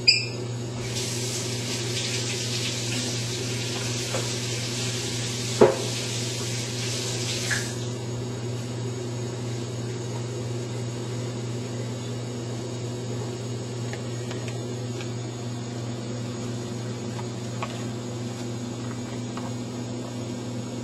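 A steady low electrical hum throughout, with a hiss like running water for the first several seconds that stops abruptly, and a single sharp knock partway through it.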